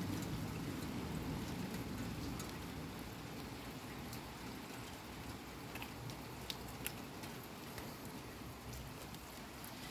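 Heavy rain falling steadily, easing slightly, with a few sharp drip ticks a little after halfway through.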